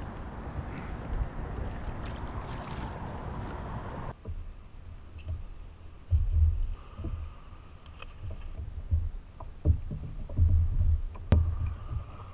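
Steady wind and water noise around a kayak on choppy open water. About four seconds in it cuts to a quieter stretch with scattered low thumps and knocks.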